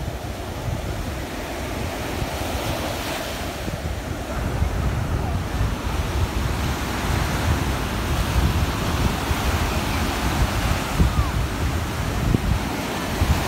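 Sea surf breaking and washing up a sandy beach, with wind gusting on the microphone.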